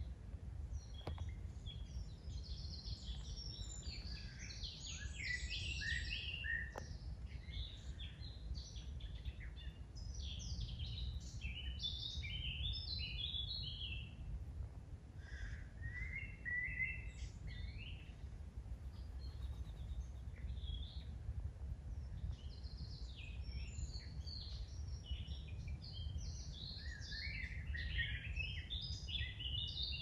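Woodland songbirds singing in repeated short, chirpy phrases, in several bouts with a pause around the middle, over a steady low rumble.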